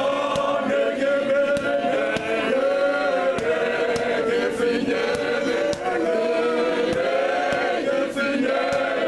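A men's gospel choir singing a cappella in harmony, the voices sustained and continuous, with scattered handclaps.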